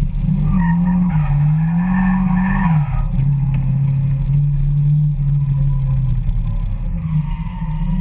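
Car engine revving up and down during a drift, heard from inside the cabin, with tyre squeal in the first few seconds. From about three seconds in the engine holds a steady pitch, then wavers again near the end.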